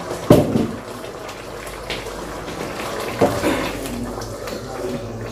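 Tomato sauce simmering in nonstick frying pans, a steady bubbling hiss, with two knocks about a third of a second in and again about three seconds in.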